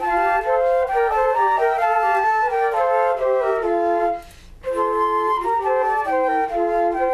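Instrumental music: several wind instruments, flute-like, playing held notes in harmony, with a brief pause about four seconds in.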